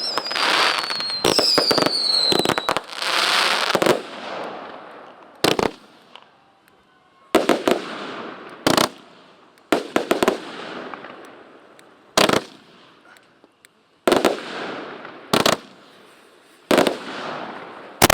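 Consumer fireworks going off: sharp bangs every second or two, each trailing off in a crackle. Twice in the first few seconds a whistling firework sounds, its whistle falling in pitch.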